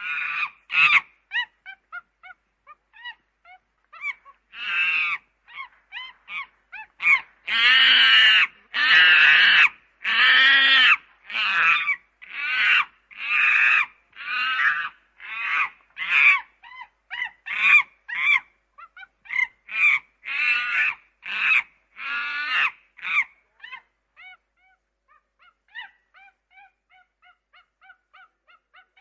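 Monkeys calling: a run of loud, pitched calls about one a second, with fainter short chirps near the end.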